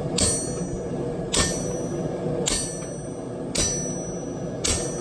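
Hammer blows on hot steel bar stock over an anvil, five evenly spaced strikes about a second apart, each with a bright metallic ring, drawing out a 1/2 inch round bar into a drift.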